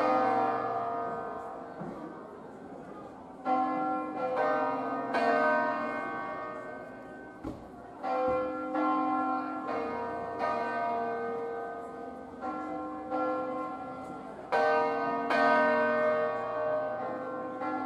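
Full peal (distesa) of a five-bell set in B-flat, cast in 1859 by Felice Bizzozero and rung by hand: the bells swing full circle on their wheels and strike in clusters every few seconds, and each ringing tone overlaps the others and fades away.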